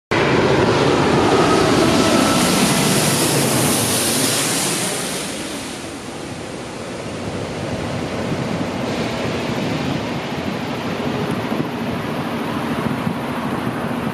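Jet airliner engines running loud, with a falling pitch and a strong hiss in the first few seconds. The noise eases to its lowest about six seconds in, then builds again into a steady rumble.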